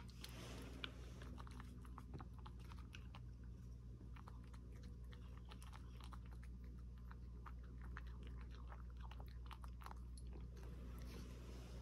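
A cat eating from a wooden dish: quick, irregular clicks of chewing and licking, several a second, over a faint steady low hum.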